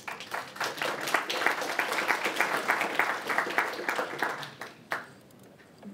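Audience applauding, a roomful of hands clapping; the clapping fades out about five seconds in.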